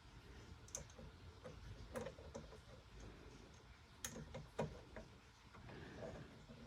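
Faint, scattered small clicks and taps of a tiny screw and a magnetic screwdriver being handled and fitted into a PS5's M.2 SSD slot, a few isolated ticks, the clearest about two and four seconds in.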